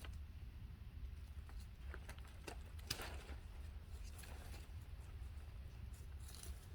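Scattered light rustles and taps over a low steady rumble.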